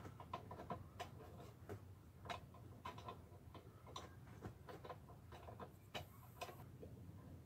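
Faint, irregular light clicks and ticks as the long mounting bolts of an RV rooftop air conditioner's ceiling assembly are turned by hand to draw the plate up. There is a brief faint hiss about six seconds in.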